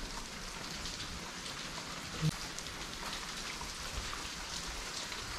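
Water dripping and splashing from the cave rock, a steady spatter of many small drips. A brief low sound about two seconds in.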